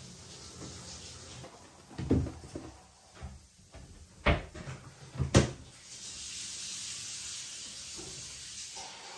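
A few knocks as a kitchen cupboard door is shut, the loudest clunk about five seconds in. A steady hiss follows, and a short electronic beep near the end as the washing machine's program dial is turned.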